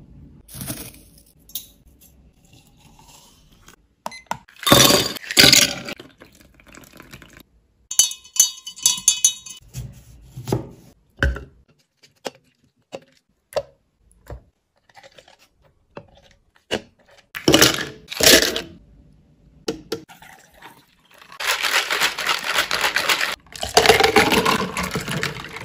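Drink-making sounds: a wooden lid taken off a glass jar of loose tea, clinks and knocks of utensils, a muddler pressing lemon slices in a shaker, and near the end a mango and ice drink poured from the shaker into a cup.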